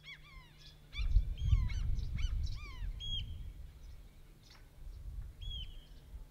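Several birds calling in a quick flurry of short downward-sweeping calls, thinning out after about three seconds, with a low rumble under the calls from about a second in.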